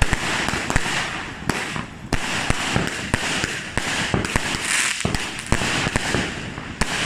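Small fireworks going off: a steady hiss with rapid, irregular crackling and popping throughout.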